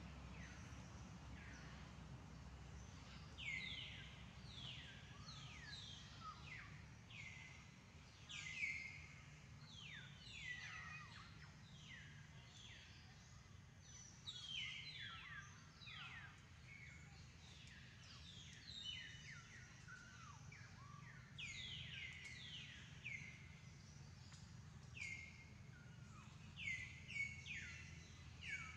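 Birds chirping: many short calls, each sliding down in pitch, coming in quick overlapping runs, over a faint low steady background rumble.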